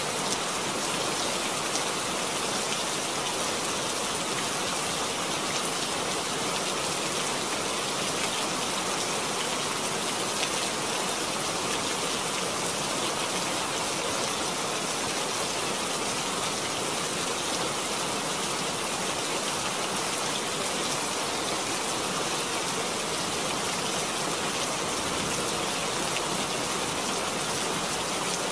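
Steady rain falling, an even, unbroken wash of sound that holds the same level throughout.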